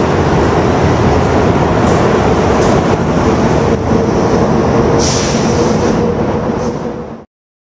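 Passenger train rolling past the platform and pulling away: a steady rumble of wheels on rail with faint clicks and a brief high squeal about five seconds in. The sound cuts off suddenly near the end.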